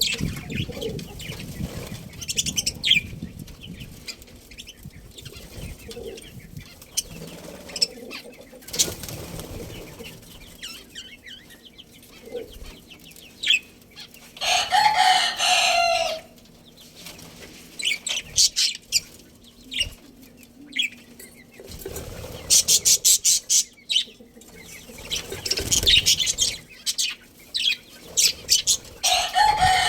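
Budgies chirping and chattering, with wings fluttering. The chirps come in intermittent bursts, with a louder call lasting about two seconds halfway through and another near the end.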